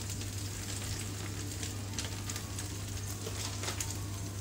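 Slices of toast frying in oil in a pan: a steady sizzle with scattered small crackles.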